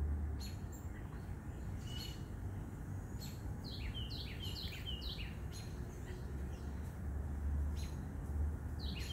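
Small birds chirping: scattered short, falling chirps, with a quick run of them about four seconds in and again near the end, over a low steady rumble.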